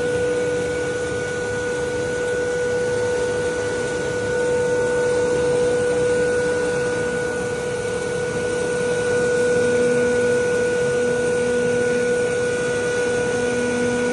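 Feed-processing machinery running steadily: a constant motor whine with a fainter high tone over a dense mechanical noise.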